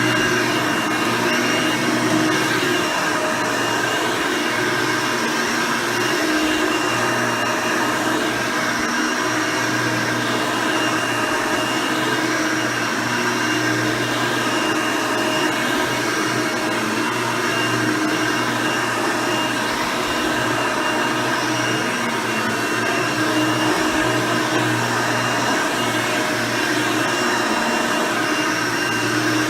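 Hoover Elite II 6.0 upright vacuum cleaner, with its 6-amp motor, nine-blade fan and brush roll, running steadily while vacuuming. It is a continuous motor hum with several steady pitches that barely changes in level.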